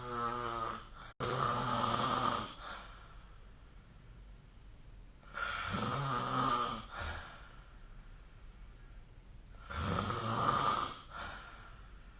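A sleeping person snoring, three long snores about four to five seconds apart, each lasting one to two seconds. The first is already under way at the start.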